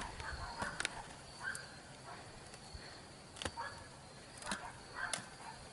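Bee smoker being puffed: about six sharp bellows clicks, each with a short rush of air, spread irregularly. A steady high insect trill runs underneath.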